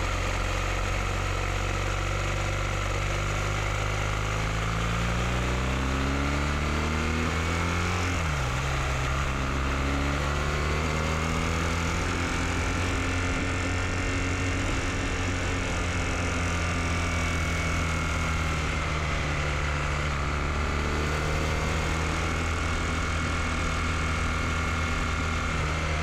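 BMW R1250GS boxer-twin engine pulling up through the revs, a sudden drop in pitch at a gear change about eight seconds in, then climbing more slowly and holding steady, under a constant wash of wind noise.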